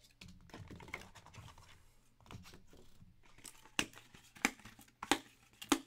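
A cardboard trading-card hobby box being unwrapped and opened: wrapping tearing and crinkling, then four sharp clicks and taps in the second half as the box and lid are handled.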